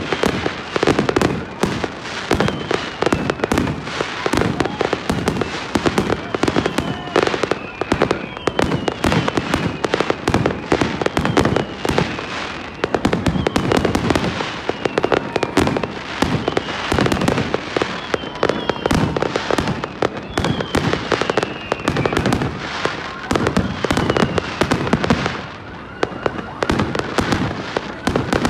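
Fireworks display: a dense, unbroken barrage of aerial shells bursting, with short falling whistles every second or two.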